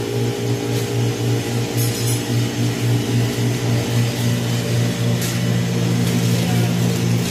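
Refrigerated chest display freezers humming: a steady low electrical hum with a slight regular flutter.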